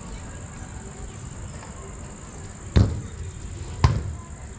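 A volleyball being hit twice, about a second apart, the second a forearm bump; each is a sharp slap. Behind it runs a steady high-pitched insect drone.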